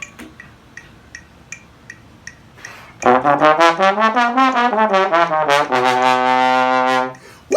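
Brass instrument, playing in a low register, runs a quick C scale up and back down, then tongues a single low note rapidly, about five times a second. Before it, faint regular clicks sound about two and a half times a second.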